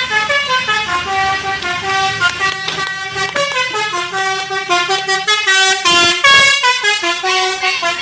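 Basuri telolet horn on a tour bus playing a melody: a quick run of stepped horn notes, changing pitch several times a second, that starts suddenly.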